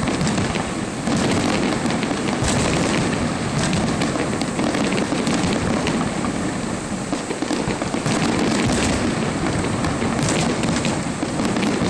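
Fireworks display: aerial shells bursting and crackling in a steady din, with sharper bangs now and then, one about two and a half seconds in and a couple near the end.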